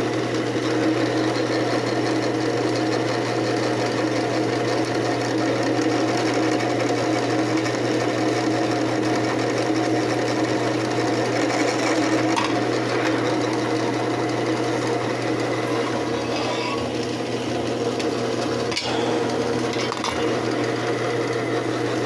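Bench drill press motor running steadily while its bit bores a hole into a wooden dowel.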